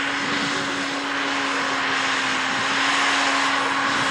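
Steady engine drone with a broad rushing hiss and a constant low hum underneath, growing a little louder about three seconds in.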